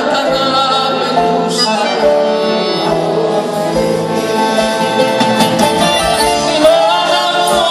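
Live band playing Greek popular music, an instrumental passage without singing, recorded from the audience on a phone's microphone.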